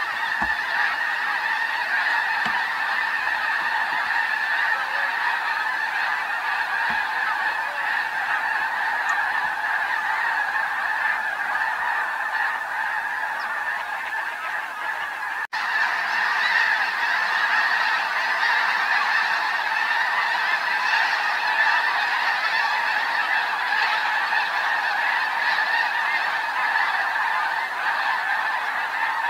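A large flock of snow geese calling in flight: a dense, unbroken din of many overlapping calls. There is a split-second break about halfway through.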